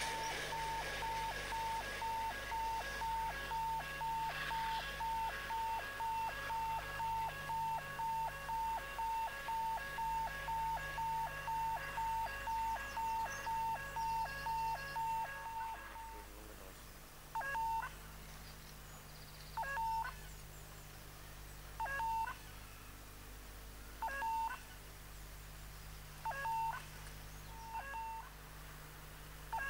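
Electronic warning beeper sounding one steady tone, about two beeps a second for roughly sixteen seconds, then slowing to a single beep every two seconds or so. The rush of a passing train fades out in the first second.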